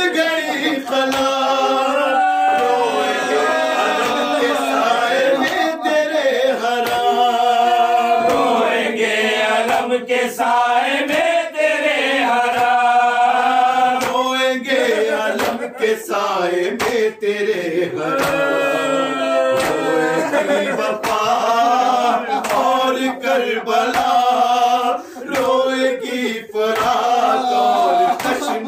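Group of men chanting an Urdu nauha, a Shia lament, in unison, with sharp hand slaps on the chest (matam) falling in time with the chant.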